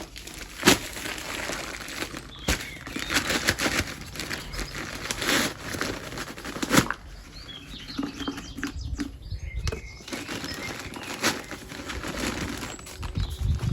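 Rustling and flapping of a sack of cement-based tile adhesive as it is handled and opened for mixing, with irregular knocks and bumps.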